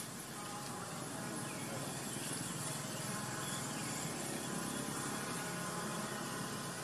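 Steady outdoor background noise with a low engine-like drone, as of a distant motor, swelling slightly through the middle.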